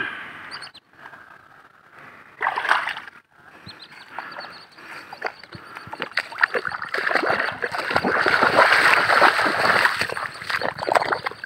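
Feet sloshing and squelching through shallow water and soft mud, with irregular splashes, busiest from about seven to ten seconds in.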